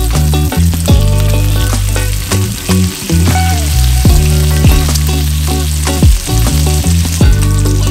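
Bacon strips sizzling as they fry in a pan, a steady crackling hiss, under background music with a deep bass beat.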